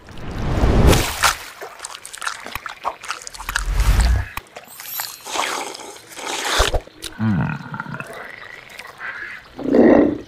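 Cartoon animal sound effects: a run of creature grunts and squeals mixed with swishing noises, ending in a loud, deep frog croak just before the end.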